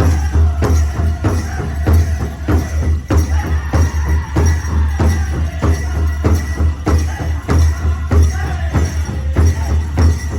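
Powwow drum beaten in a steady, even beat, about two to three strikes a second.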